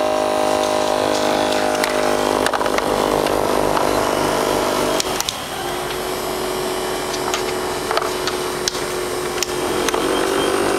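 A small motor humming steadily, which changes to a plainer, slightly quieter hum about halfway through, with scattered light clicks of ping pong balls striking a contraption.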